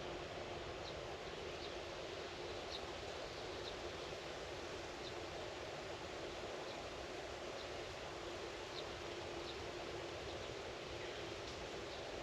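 Outdoor rural ambience: a steady rustling hiss with short, high chirps scattered through it at irregular intervals, roughly once a second.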